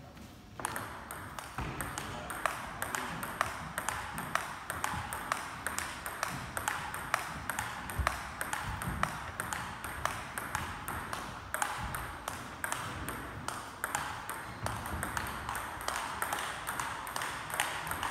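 Table tennis ball being struck back and forth in a rally: a steady run of sharp clicks, several a second, of the celluloid ball hitting the paddles and the table, over a steady hiss.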